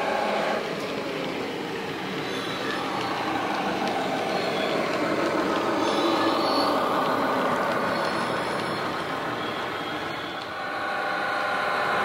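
Sound decoder in a Dapol model Class 21 diesel locomotive playing its engine running under power through the model's small speaker as the locomotive passes. The sound swells through the middle.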